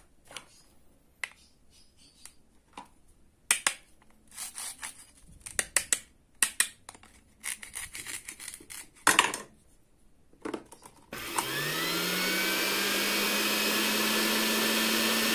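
Clicks, knocks and scrapes of a plastic toy fruit being cut with a wooden toy knife. About 11 seconds in, a small battery motor in a toy hand mixer switches on, speeding up briefly and then whirring steadily as it spins in a bowl of liquid.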